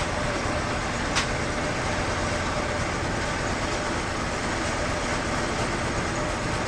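Sawmill machinery running steadily, a dense even mechanical noise, with one sharp click about a second in.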